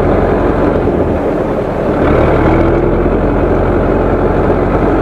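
Zetor tractor's diesel engine running steadily, with a short rise in pitch and level about two seconds in.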